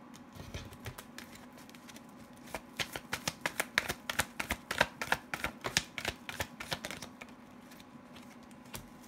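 Tarot and oracle cards being shuffled and handled by hand: a quick run of sharp papery card clicks that starts a couple of seconds in and stops about two seconds before the end.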